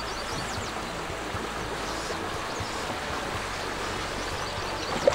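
Steady rushing water noise, with one sharp knock near the end.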